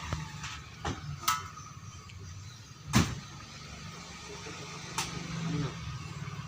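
A few sharp metal knocks and clinks from work on a bandsaw's wheel assembly, one of them ringing briefly and the loudest about three seconds in, over a low steady hum.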